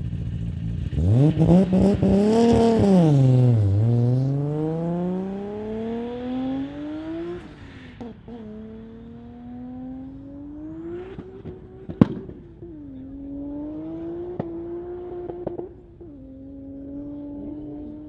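Toyota Supra (A80) drag car launching hard and accelerating away. The engine note climbs, falls back and climbs again in first gear, then pulls through three more upshifts, each a long rising sweep followed by a drop, with one sharp crack about twelve seconds in. The sound fades as the car draws away.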